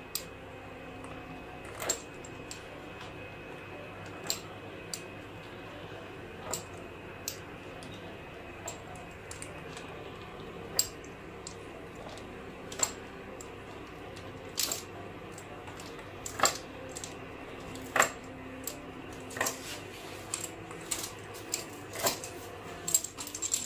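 Metal fluted pastry wheel cutting puff pastry on a board, with light sharp clicks and taps every second or two, more frequent near the end, over a steady low hum.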